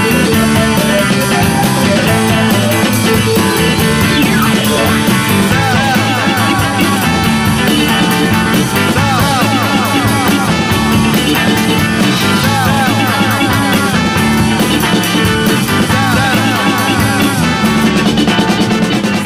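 Rock music soundtrack in an instrumental passage with no singing. A repeated lead line swoops up and down in pitch from about six seconds in.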